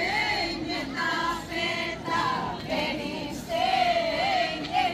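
A mixed group of women, men and children singing a traditional Greek Easter round-dance song together, unaccompanied and without clapping, with long wavering held notes.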